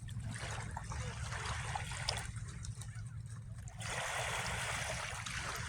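Water splashing and trickling over a steady low rumble, with a broader, louder wash of water from about four seconds in.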